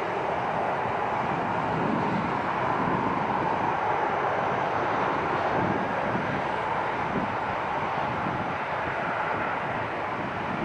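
Boeing 737-500's CFM56 turbofan engines running at taxi power, heard from a distance as a steady engine hum.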